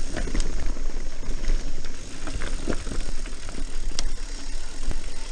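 Mountain bike ridden down dirt singletrack: a steady rumble of wind on the camera microphone and tyres running over the dirt, with the bike rattling and giving sharp clicks and knocks over bumps.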